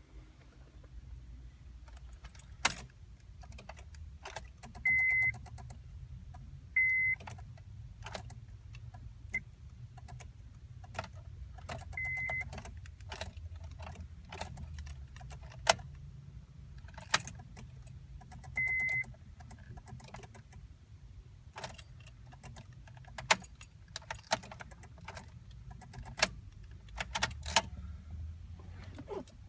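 2006 Honda Civic failing to start on a weak battery: the ignition is turned again and again, giving sharp single clicks and short bursts of rapid clicking with a high buzz, with the keys jangling and no cranking. The battery is too weak to turn the starter.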